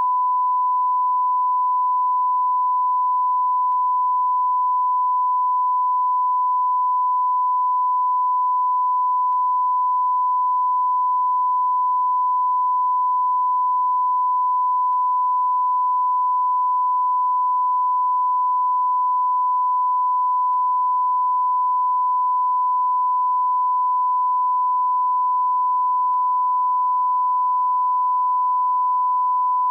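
A continuous electronic beep sound effect: a single pure tone held at one steady pitch and level, without a break.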